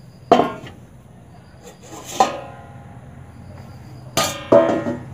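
Metal kitchen utensils clanking: a sharp, ringing metallic clink shortly after the start, another about two seconds in, and two close together near the end.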